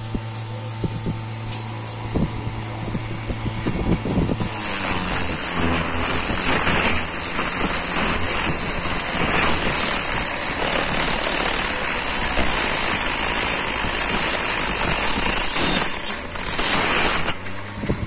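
Small 12-volt DC motor of a homemade key-cutting machine running while its cutter wheel cuts a duplicate key. At first there is a low hum with a few clicks. About four seconds in, a loud steady high whine with grinding sets in as the cutter works the key, and it drops away shortly before the end.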